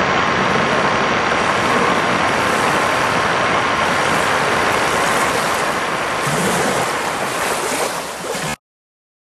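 Steady, loud rushing noise with no voices or music, which cuts off abruptly near the end.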